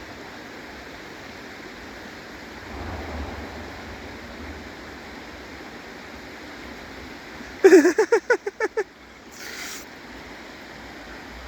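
Steady rush of a flowing stream. About eight seconds in, a loud quick run of about seven short pitched sounds lasting about a second, followed by a brief hiss.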